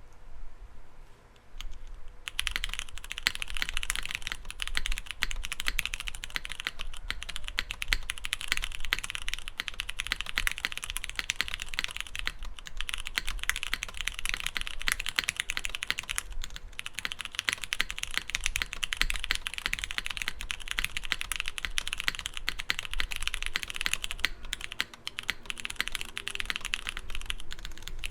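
Fast, continuous typing on a Ciel60 mechanical keyboard with stock Cherry MX Purple switches, a dense run of keystroke clacks. The typing starts about two seconds in and pauses briefly once around the middle.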